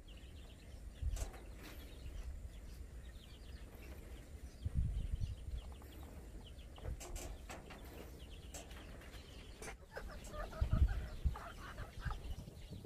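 Chickens clucking on and off, busier near the end, with a few low thumps.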